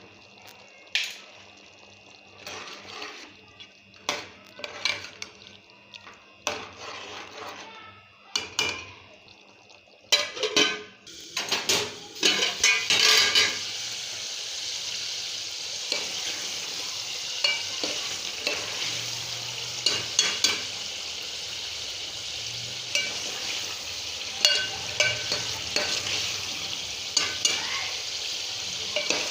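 A spoon scraping and clinking in a cooking pot. About ten seconds in, a steady sizzle of frying starts and keeps on while the spoon keeps stirring and scraping the pan.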